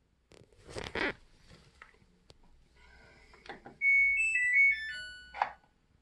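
Samsung WW90K5410UX washing machine playing its power-off jingle, a short tune of electronic beeps falling in pitch, about four seconds in. The machine is being switched off while it shows a 4C water supply error. A couple of knocks come about a second in, and another just before the end.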